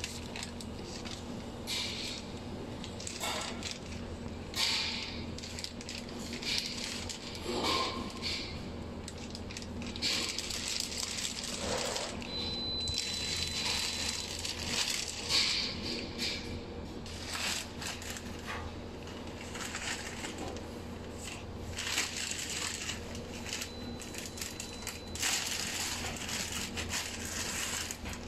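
Clear plastic packaging film crinkling and rustling in irregular bursts as it is pulled and threaded by hand through the film rollers of a packaging machine, over a steady low hum.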